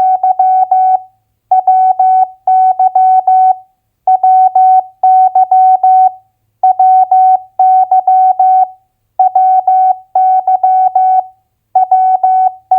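Morse code practice tone at 15 words per minute: a single steady beep keyed on and off in dots and dashes, sending two-letter US state abbreviations as separate groups about every two and a half seconds.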